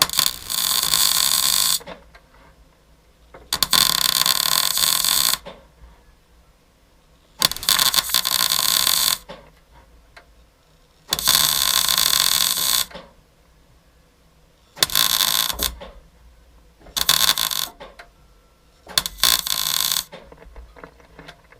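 MIG welder laying short stitch or plug welds on car body sheet steel: seven bursts of arc crackle and hiss, each one to two seconds long, with short pauses between. The last three bursts are shorter.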